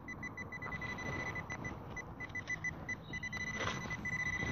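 Metal detecting pinpointer probe beeping as it is pushed through a clod of soil. The short high beeps come several times a second and run together into a steady tone as the probe closes on the metal target, with a brief scrape of soil about three and a half seconds in.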